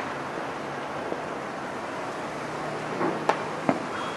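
Distant fireworks going off: two sharp bangs a little under half a second apart, about three and a half seconds in, over a steady outdoor hiss of background noise.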